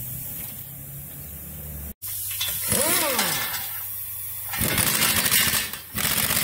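Pneumatic impact wrench driving a bolt through a steel angle brace into a wooden post. It gives a short whine that rises and falls as it spins, then rapid hammering for a second or so, a brief pause, and more hammering.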